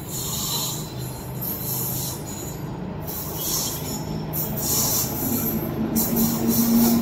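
Train running on the rails and getting louder as it nears, with steady wheel-and-track rumble and hissing swells that come and go about every second or so. A steady hum joins about five seconds in.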